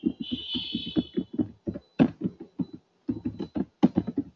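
Typing on a computer keyboard: a quick run of keystroke clicks, with a short pause about three seconds in.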